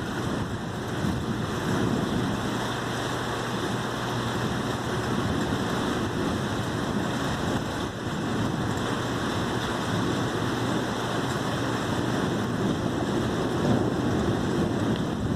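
Heavy thunderstorm rain and wind as a steady, even rush, with some wind buffeting on the microphone.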